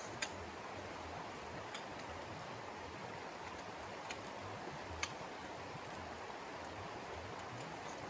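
Steady outdoor rushing noise with four sharp clicks from a long pole being handled. The loudest clicks come just after the start and about five seconds in.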